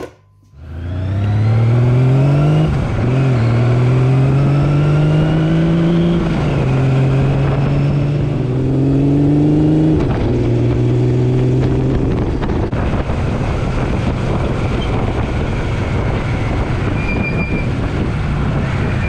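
Kawasaki Z1's inline-four engine accelerating up through the gears: the pitch climbs in each gear and drops at each of about four gear changes. After that it settles into a steady cruise under a loud rush of wind.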